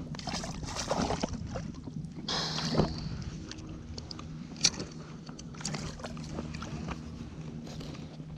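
Water sloshing and splashing around a landing net as a large bream is netted beside a float tube, with scattered knocks and clicks of the net and rod being handled and one sharp click about four and a half seconds in, over a steady low hum.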